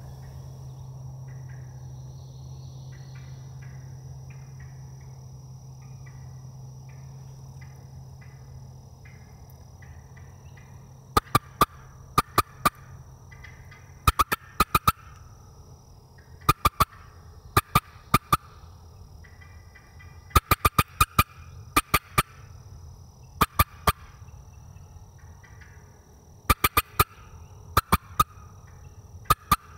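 Osceola wild turkey gobbling repeatedly. From about a third of the way in, loud sharp clicks come in quick groups of two or three, about every one to three seconds.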